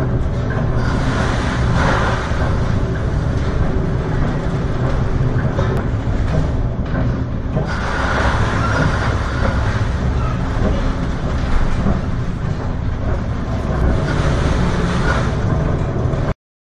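A storm at sea heard from aboard a ship: a loud, steady rush of wind and heavy seas with a low hum underneath, swelling twice as spray and waves break over the bow, then cutting off suddenly near the end.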